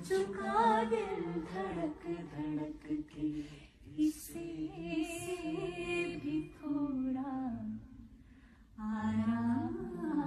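A woman singing a slow melody without clear words, close to humming, with little or no accompaniment. The voice stops briefly about eight seconds in, then comes back.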